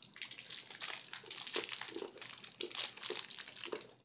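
Candy wrapper crinkling in the hands while a piece of candy is chewed, a dense crackle with soft low pulses about twice a second.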